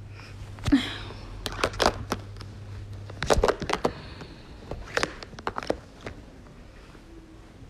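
Handling noise from a phone being moved about: irregular clicks, knocks and rubbing against fabric, with a low steady hum that stops about three seconds in.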